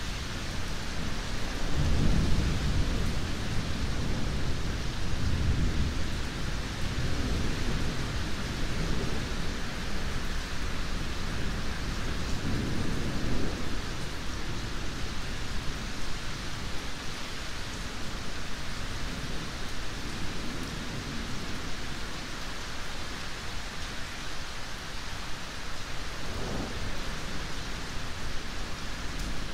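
Steady rain with rumbles of thunder: the strongest rolls in about two seconds in, more come around five and thirteen seconds, and a short low one comes near the end.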